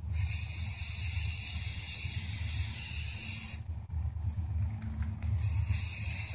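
Aerosol spray-paint can hissing: one long spray of about three and a half seconds, a pause, then a second shorter spray near the end.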